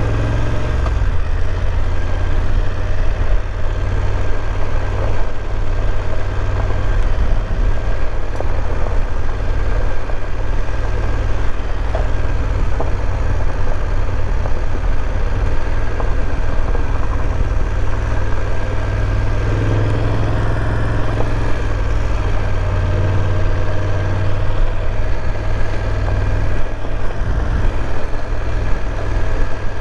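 BMW F850 GS parallel-twin engine running steadily under way, with a constant low rumble and road noise.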